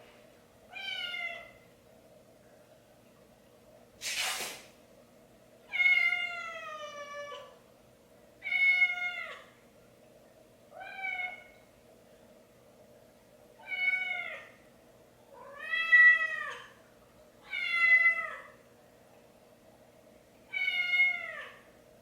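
A cat meowing over and over: about eight drawn-out meows a couple of seconds apart, each rising and then falling in pitch. A short burst of noise comes about four seconds in, over a faint steady hum.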